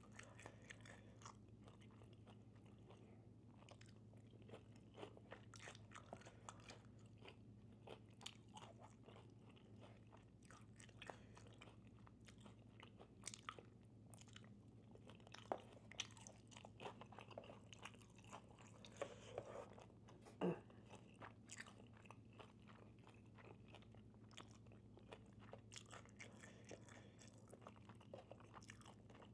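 Faint close-up chewing and biting of chewy fried Chinese takeout food, scattered small crunches and mouth clicks over a steady low hum, with one louder crunch about twenty seconds in.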